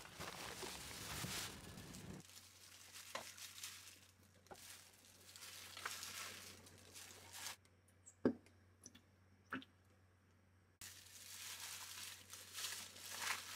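Thin plastic crinkling and rustling: plastic garbage bags being handled, then disposable plastic gloves rustling as gloved hands knead rice with chopped vegetables in a bowl. There are a few sharp clicks and a faint steady low hum underneath.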